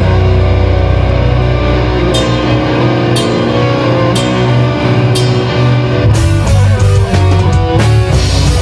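Black metal band playing at rehearsal: guitar and drum kit, with cymbal crashes about once a second in the middle and a busier, faster-changing guitar riff near the end.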